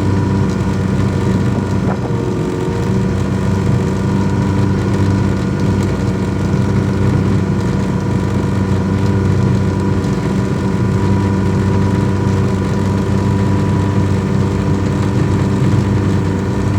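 Yamaha 100 hp outboard motor running at a steady idle during a test run after an ignition misfire. A small click comes about two seconds in.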